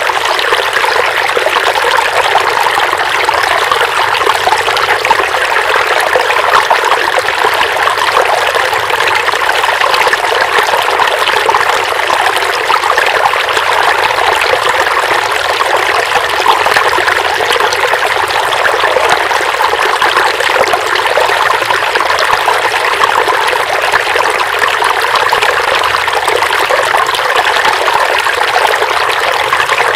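River water flowing steadily over stones, a constant loud rushing and trickling.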